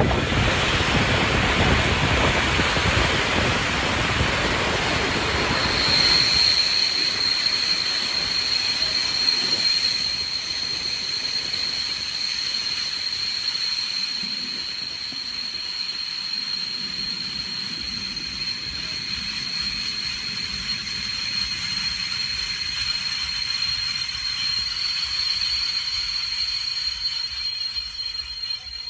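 Passenger train rolling slowly into a station, heard from a coach window: rushing wind and rolling noise fade, and about six seconds in a steady high-pitched squeal from the train's running gear sets in and holds as the train slows.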